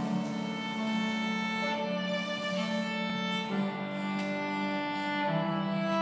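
Instrumental opening of a choir anthem: strings play held chords that come in suddenly and change twice, about halfway through and near the end.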